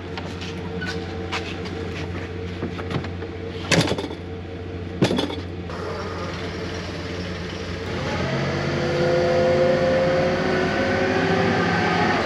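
A vehicle engine running steadily, with a few sharp knocks in the first five seconds. About eight seconds in, a louder whining drone rises and holds.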